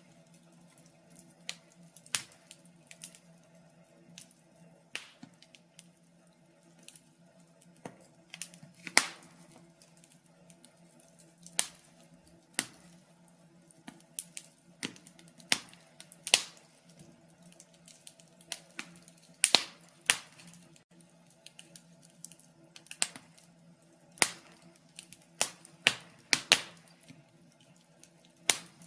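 Wood fire in a fireplace crackling, with irregular sharp pops, some close together and some a few seconds apart. A faint steady low hum sits underneath.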